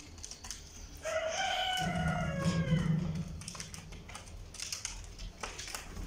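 A rooster crows once, starting about a second in: one call of roughly two seconds that falls in pitch at its end. Scattered light clicks and scratches run under it.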